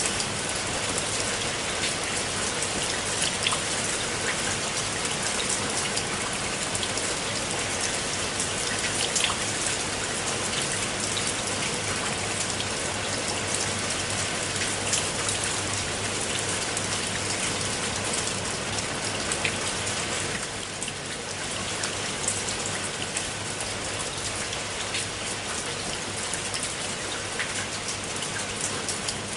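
Steady rain falling on a pool of water: a dense, even patter of many drops with sharp individual drips standing out, easing slightly for a moment about twenty seconds in.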